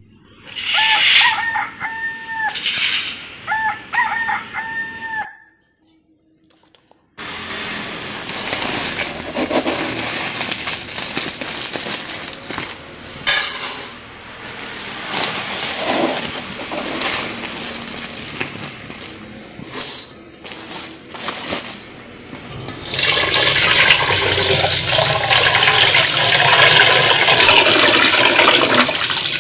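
A rooster crowing several times. After a short pause comes a long steady rush of running water, louder over the last several seconds.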